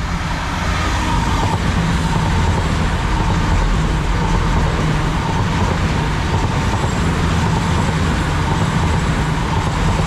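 Two coupled Class 222 Meridian diesel-electric multiple units passing through without stopping: a steady, loud rush of wheels on rail with the drone of their underfloor diesel engines.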